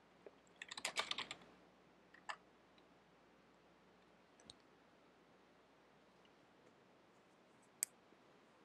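Computer keyboard being typed on: a quick run of keystrokes about a second in and a single harder key press just after two seconds, then two isolated clicks later, over near silence.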